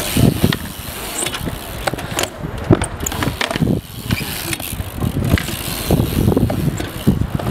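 BMX bike tyres rolling on concrete bowl walls, with a run of sharp knocks and clicks from the bike.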